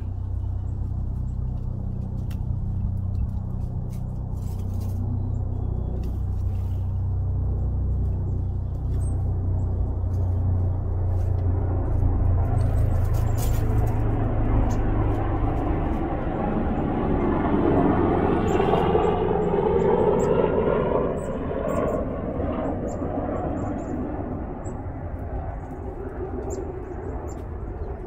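Motor vehicle engine rumbling low and steady, then a swell of road noise as a vehicle passes, loudest a little past the middle and easing off toward the end.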